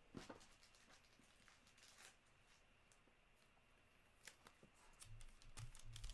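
Near silence: room tone with a few faint clicks of trading cards being set down, and soft handling of cards starting near the end.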